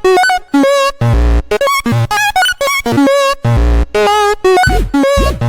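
Electronic music built from chopped, repeating bell-like tones in the style of a Japanese railroad-crossing alarm, over heavy bass hits, with sweeping bass wobbles near the end.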